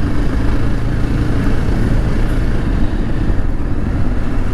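Motorcycle engine running at a steady pitch while being ridden over a dirt road, under a steady rush of wind and road noise.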